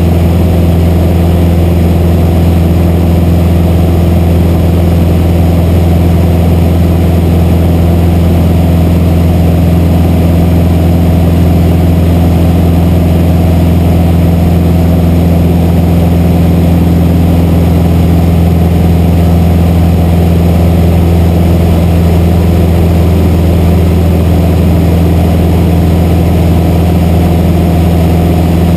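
Light single-engine airplane's engine and propeller running steadily in flight, heard from inside the cabin as a loud, even, low drone.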